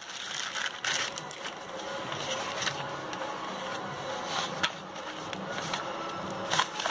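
Plastic courier bag crinkling and rustling as it is pulled off by hand, then cardboard packaging handled and slid open, with scattered crackles and light taps.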